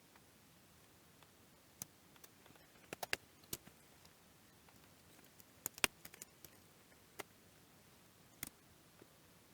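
Scattered light clicks and taps of small parts and screws being handled during reassembly of an electronics panel, with a cluster about three seconds in and the sharpest click a little before the middle.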